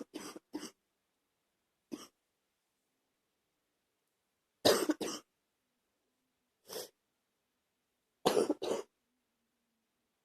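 A person with a bad cold coughing in short bouts: a quick run of coughs at the start, a single cough about two seconds in, a loud pair near the middle, one more a little later, and another loud pair near the end.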